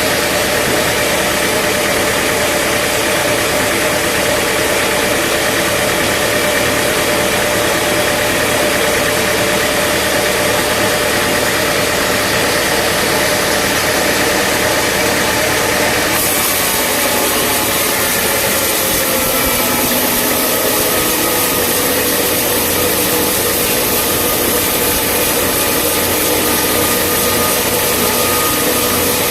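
Sawmill machinery running steadily: a continuous engine drone with a hiss of noise. Its tone changes abruptly about sixteen seconds in.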